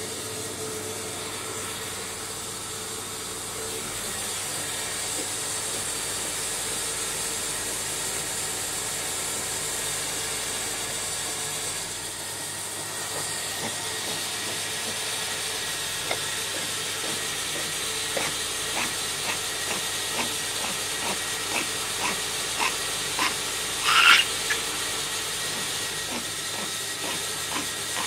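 A steady hiss, with a run of soft, evenly spaced clicks in the second half and one brief high squeak about two-thirds of the way through.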